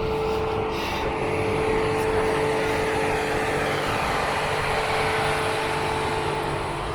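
Rolls-Royce Cullinan V12 SUV driving: a steady engine hum under tyre and road noise, swelling slightly about two seconds in and easing off a little near the end.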